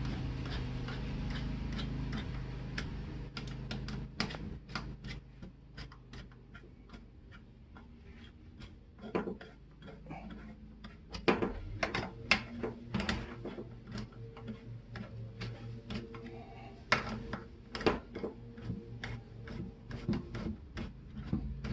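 Irregular small metallic clicks and ticks from tools and parts being handled while the framing nailer's bolts are fitted and turned. They come in short clusters, and a low steady hum fades out over the first few seconds.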